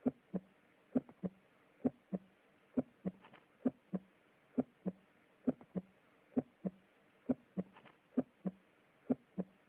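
Normal heart sounds, lub-dub: S1 from the mitral and tricuspid valves closing, then S2 from the aortic and pulmonic valves closing. The paired beats come evenly, a little under one pair a second, with no murmur or extra sound between them.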